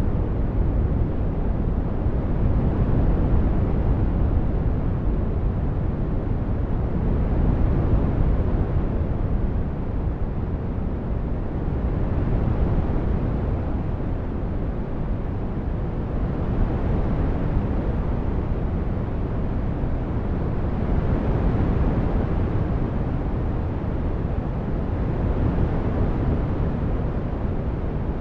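Synthesized brown noise: a deep, steady rush with most of its weight in the bass, its upper range slowly swelling and fading every few seconds like breathing.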